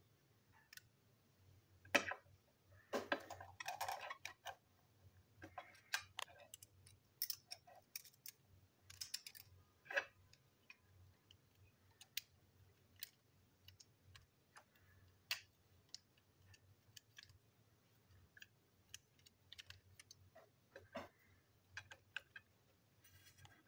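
Irregular small clicks and taps of plastic toy-train parts, screws and a screwdriver being handled and set down, with a short patch of rustling handling noise about three seconds in.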